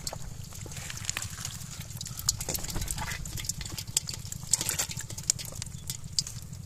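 Live stinging catfish wriggling and slapping in a pot with a little water as they are tipped in from a plastic mesh basket: irregular wet splashes and clicks.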